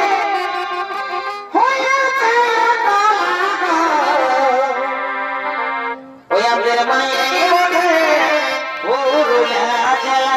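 Instrumental interlude of a Jhumur folk song: a melodic instrument plays long held notes with bends in pitch. New phrases begin about a second and a half in, just after six seconds and about nine seconds in, each sliding up into its first note.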